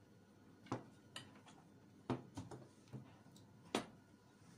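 Tableware being handled on a dining table: a ceramic plate set down and cutlery touching the dishes, heard as about six separate light clicks and knocks, the sharpest just under four seconds in.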